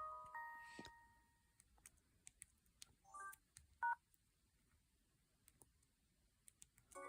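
Samsung SGH-G600 mobile phone playing short electronic message tones one after another, each a brief chord-like jingle. The first rings out over about a second, then more follow, with a sharp beep about four seconds in and another tone near the end. Faint key clicks fall between them.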